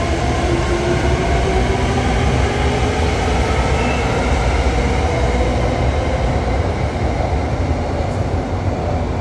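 SRT Red Line electric commuter train pulling away: a steady rail rumble under a whine from its traction motors that rises in pitch as it picks up speed.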